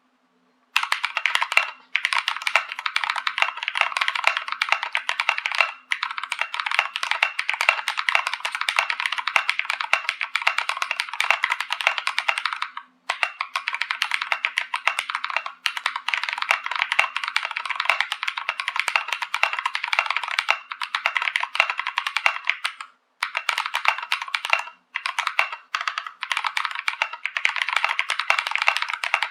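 Fast continuous typing on a Novelkeys NK65 V2 full-aluminum 65% mechanical keyboard with lubed Durock L7 linear switches and Akko Sakura PBT keycaps, dampened with silicone and foam. Rapid key clicks broken by a few short pauses.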